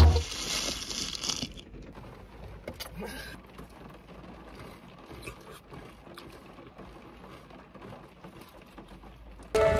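Faint eating sounds: wooden spoons scraping and tapping in plastic cups of yogurt and granola, with a few soft scattered clicks, in a quiet car cabin.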